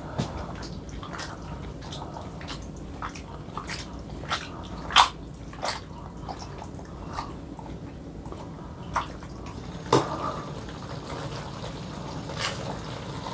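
Paccheri pasta being folded and flipped in a pan of thick ricotta and sausage sauce: irregular wet squelches and light clicks of the utensil against the pan, with sharper knocks about five seconds in and again about ten seconds in.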